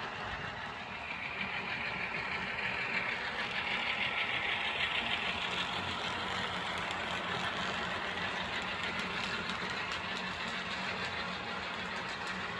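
Model train locomotives running on the track loops: a steady whir of motors and wheels on the rails, growing louder from a couple of seconds in and then easing off.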